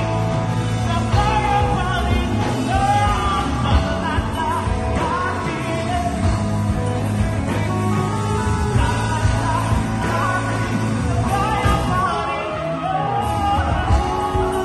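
A live band playing a pop-rock song: a singer's melody over drums and keyboard, amplified through the stage speakers.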